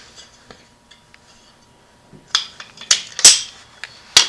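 A few sharp clicks and knocks, about four in a couple of seconds with the loudest near the middle, as burner parts are handled for reassembly after a short quiet stretch.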